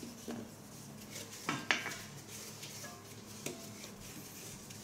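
A few faint, scattered clicks and light clinks against a ceramic toilet bowl as a hand handles and rubs it, one or two with a short ring.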